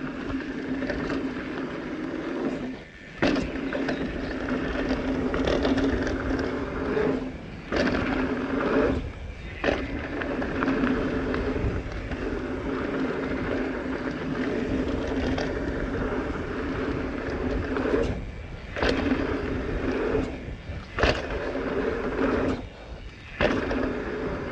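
Transition Smuggler mountain bike riding down a dirt jump trail: knobby tyres rolling with a steady hum and rattle, the noise dropping out briefly about six times, with sharp knocks at several of the dips.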